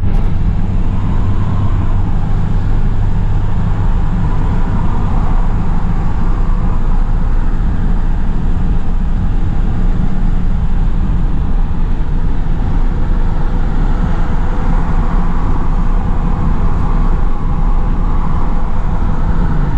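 A tractor engine running steadily and loudly, with a deep, even hum that holds the same pitch throughout.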